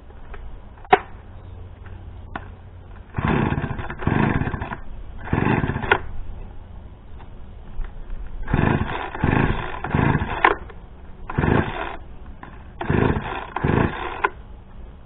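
Gas chainsaw being pull-started again and again: five rough bursts, each lasting up to about two seconds, none settling into a steady run. A single sharp knock comes about a second in.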